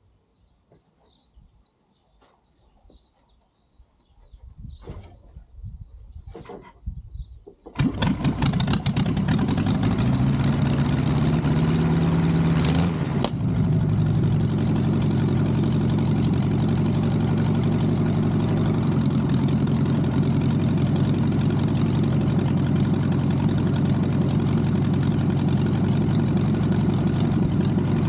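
Air-cooled 1600 cc VW aircraft conversion engine, magneto-fired with dual Solex carburettors, starting for the first time after a rebuild and years in storage. A couple of thumps, then about eight seconds in it catches and runs. The revs rise and settle, and it then runs steadily.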